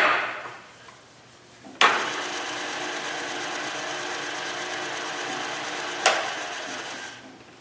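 Bridgeport step-pulley vertical mill's spindle switched on with a click about two seconds in, running steadily with a mechanical hum of several tones, then switched off with another click about two seconds before the end and coasting down.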